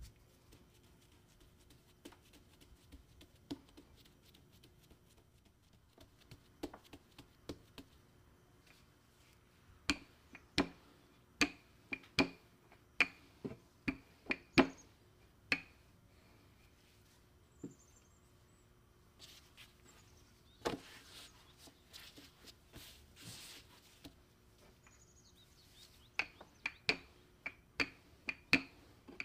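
Wooden rolling pin rolling out dough on a wooden board: runs of sharp wooden knocks and clacks as the pin is pushed back and forth, with a stretch of rubbing noise between the runs.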